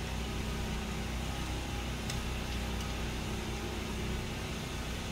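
Steady engine hum of portable generators running nearby during a power outage, with two faint clicks a little after the middle as the screwdriver works the breaker's terminal screw.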